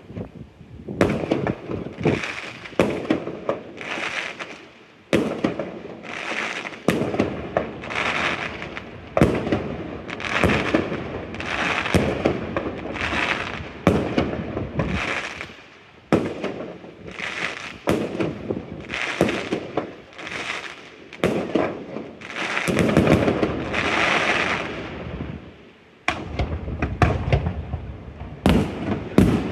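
Aerial fireworks shells bursting in quick succession, about one bang a second, each trailing off into a rumble before the next.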